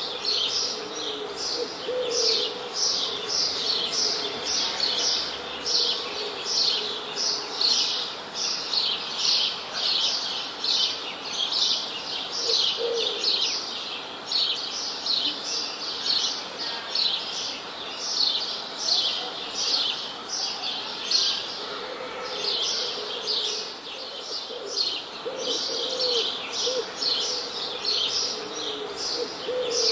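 Birds chirping continuously in quick high chirps, about three a second, with a few lower short calls now and then.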